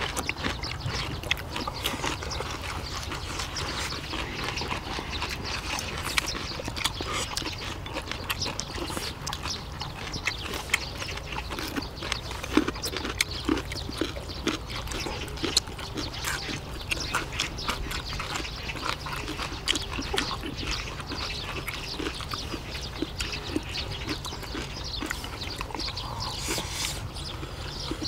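People eating braised kimchi and rice: close chewing with many small clicks and smacks scattered throughout, over a steady low hum.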